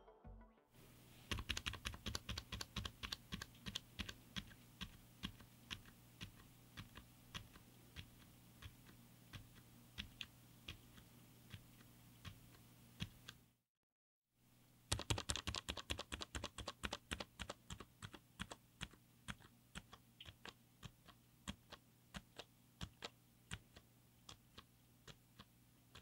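Keystrokes on a mechanical keyboard with Outemu Silent Yellow Jade silent tactile switches, an FR4 plate and an aluminum case. The clicks come in two runs, several a second at the start of each and then more spaced out, with a brief break of silence about halfway.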